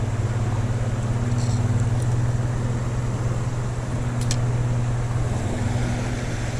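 Steady low rumble and hiss of water pouring over a small creek spillway, unbroken throughout, with a couple of faint ticks.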